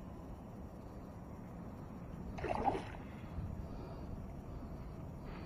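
Steady water and wind noise around a kayak on open water, with one brief louder sound about two and a half seconds in.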